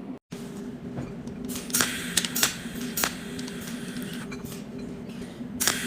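Cold welding machine snapping in sharp, irregular pulses as it fuses metal onto square tubing, over a steady electrical hum.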